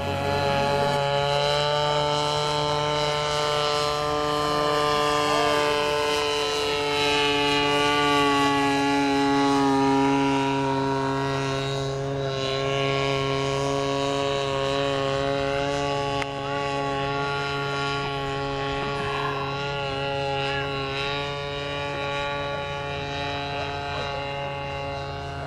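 Engine and propeller of a 67% scale radio-controlled Santos-Dumont Demoiselle model in flight, a steady drone whose pitch slides down over the first several seconds and then holds.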